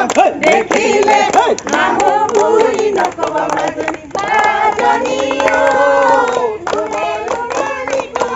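A group of people singing a Bihu song together and clapping their hands in time, with a long held note partway through.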